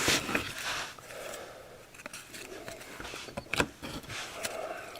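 Rustling and scattered sharp clicks of a trading-card pack being opened and its cards handled, with the loudest click about three and a half seconds in.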